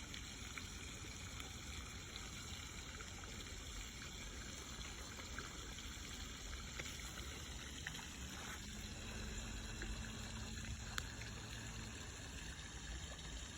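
Faint, steady sound of moving water, a gentle trickle or wash, with a few small ticks scattered through.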